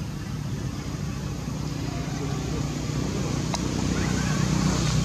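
Steady low engine hum, growing slightly louder toward the end, with a single faint click about three and a half seconds in.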